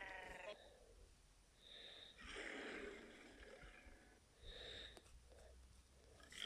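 Faint homemade Godzilla creature sound effect: a pitched call trails off at the start, then come two breathy, hissing exhalation-like sounds, a longer one about two seconds in and a shorter one a couple of seconds later.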